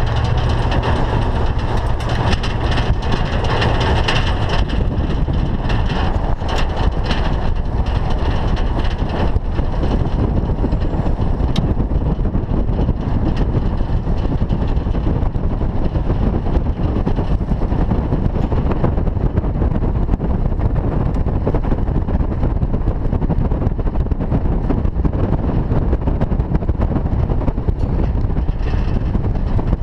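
Pickup truck driving on a gravel road: a steady rumble of tyres and wind noise, with a few sharp ticks in about the first ten seconds.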